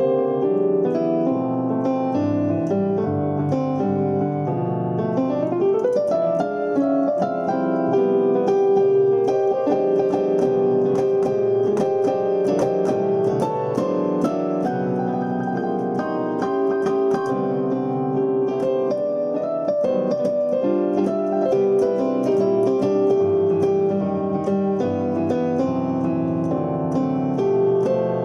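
Electronic keyboard played with a piano voice: a flowing run of chords and melody over held notes, with a quick upward run about five seconds in.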